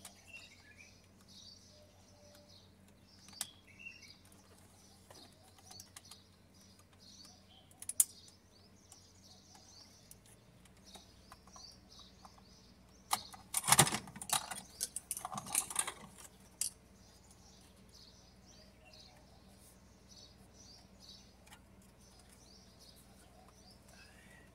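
Loose plastic and metal dashboard parts clicking and clattering as they are handled with a screwdriver inside the car, with a burst of louder rattling and clatter from about halfway through that lasts roughly three seconds. Birds chirp steadily in the background.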